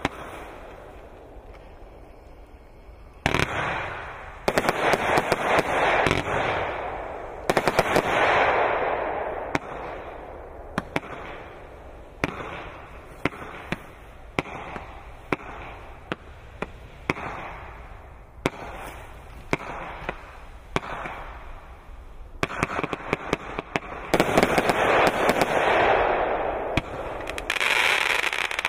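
Consumer fireworks cake with a single fuse firing shot after shot: sharp reports come every second or so, and several loud bursts are each followed by a crackling shower that fades over a second or two.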